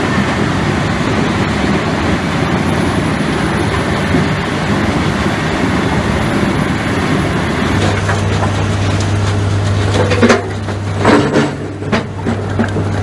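Heavy forestry machine running with a loud, steady engine noise. About eight seconds in the sound changes abruptly to a steady low engine hum, and near the end several sharp cracks and snaps come through, like wood breaking.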